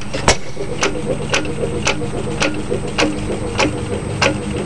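Ideal vertical hit-and-miss gas engine running, with a steady low drone and a sharp click about twice a second. The clicks slowly space out toward the end.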